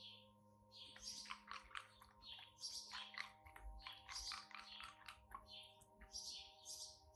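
A cocker spaniel crunching and chewing ice: repeated bouts of crisp crunching with clicks of teeth on ice, each about a second long.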